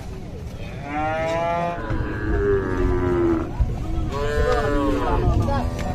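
Cattle mooing: two long calls, the first about a second in with a held middle, the second just after it.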